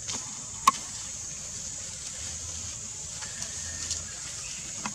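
Outdoor forest ambience: a steady high-pitched insect drone, broken by one sharp click just under a second in and a few fainter clicks near the end.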